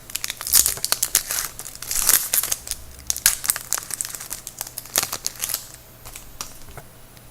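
A trading card pack being torn open and its wrapper crinkled in the hands, a dense run of crackling that dies down after about five seconds.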